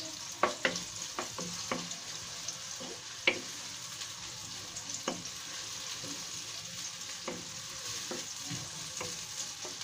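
Sliced onions sizzling steadily in hot oil in a non-stick frying pan, stirred with a wooden spatula that knocks and scrapes against the pan at irregular moments.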